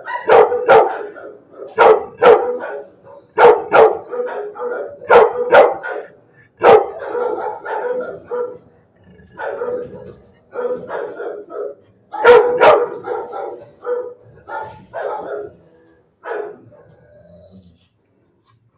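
Pit bull–type dog barking in a shelter kennel with block walls, in clusters of two or three loud barks repeated every second or two. The barking stops about three-quarters of the way through, followed by a few faint sounds.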